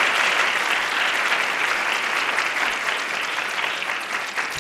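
Audience applauding steadily, the clapping beginning to die down near the end.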